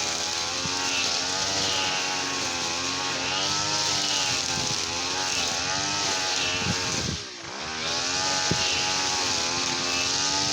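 Small petrol engine of a brush cutter running, its pitch wavering up and down; it drops briefly about seven seconds in, then picks up again.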